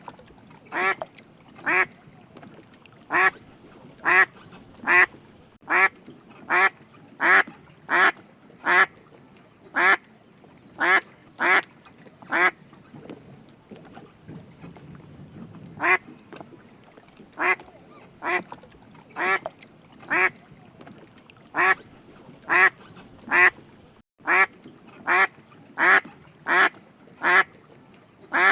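A duck quacking over and over in short, separate quacks, one or two a second, with a pause of about three seconds near the middle.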